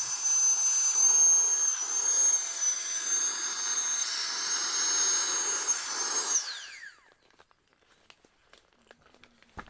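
Flextail Max Pump 2 Pro electric air pump running in deflate mode, sucking the air out of an air mattress: a steady high whine over a rush of air. About six and a half seconds in it is switched off, its pitch falling quickly as the motor winds down, and a few faint handling clicks follow.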